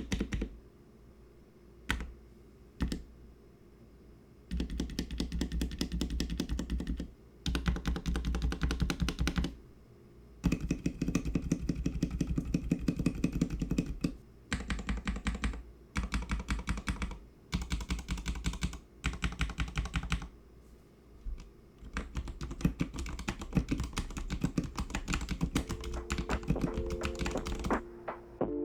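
Typing on a Royal Kludge RK84 mechanical keyboard with lubed brown tactile switches, PBT keycaps and holee-modded stabilizers: fast runs of key clacks in bursts of a few seconds, with short pauses between. Soft music comes in under the typing near the end.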